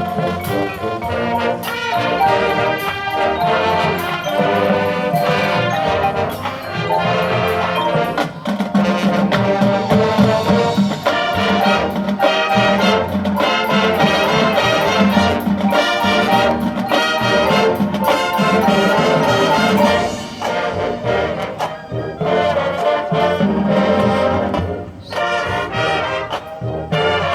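High school band playing a loud, brass-led piece of trumpets and trombones over percussion, turning quieter and choppier about twenty seconds in before swelling again near the end.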